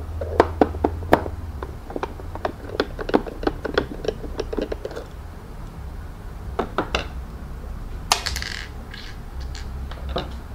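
Screwdriver turning screws out of the plastic casing of a Philips PerfectCare Aqua steam generator iron: a quick run of small clicks and taps, more clicks after a pause, and a short scrape about eight seconds in.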